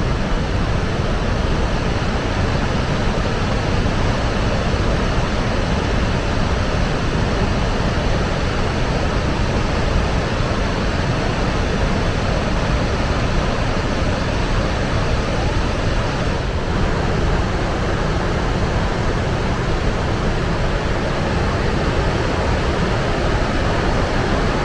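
Steady, loud roar of rushing water from Niagara Falls or its rapids, unbroken throughout.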